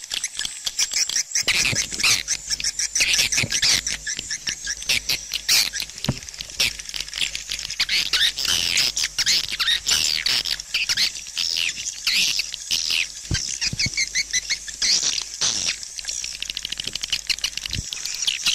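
Swiftlet calling sound: a dense, unbroken chorus of high twittering chirps and fast clicks. It is the kind of lure recording played to draw swiftlets into a bird house to roost and nest.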